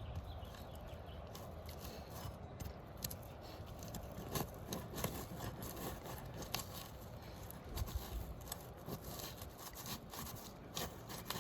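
Faint scraping with scattered crackling ticks: an asphalt shingle being pried up off its sealant strip, the brittle shingle tearing as it unseals.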